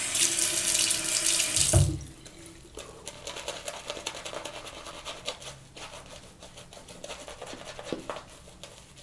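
A bathroom tap runs for about two seconds, wetting the shaving brush to add a touch of water to the lather, and is shut off with a low knock. Then a small boar-bristle shaving brush works the soap lather over the face in a quiet, rapid scrubbing.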